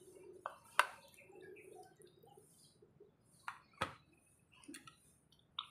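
A wooden spatula stirring noodles in an aluminium mess tin, knocking sharply against the tin a few times: once about a second in, twice close together around four seconds, and once more near the end.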